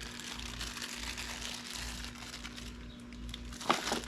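A bag crinkling and rustling as a spare starter relay is handled and wrapped in it, with one sharp knock near the end.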